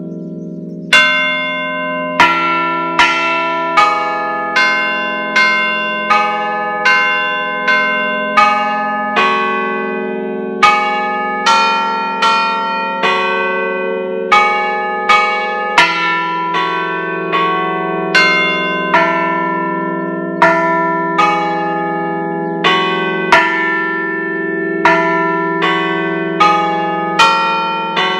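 A five-bell set of De Poli church bells cast in 1949, tuned in E3, ringing a melodic concerto: single bell strokes following one another a little over once a second, each left ringing over the hum of the bells before it. The strokes begin about a second in.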